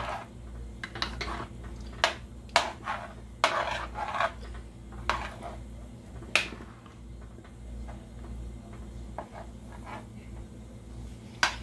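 A metal ladle stirring in a large aluminum pot of gravy, with irregular clinks and scrapes against the pot's bottom and sides, over a steady low hum. The stirring keeps the roux from sticking to the bottom of the pot.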